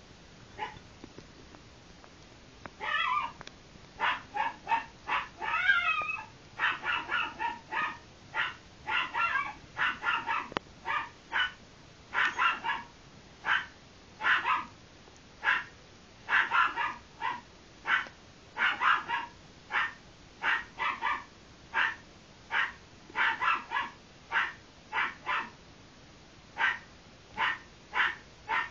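A dog barking over and over in short, sharp barks, roughly two a second, starting about three seconds in, with a few longer, wavering calls among the first of them.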